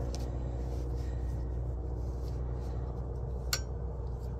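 Light clicks of metal strut parts being handled as a spring isolator goes back onto a strut, with one sharper clink about three and a half seconds in, over a steady low background hum.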